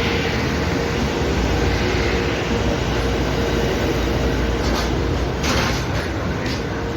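Freight train hauled by an E652 electric locomotive running past: a steady rumble of wheels on rail with a constant hum, and a few sharp knocks in the second half.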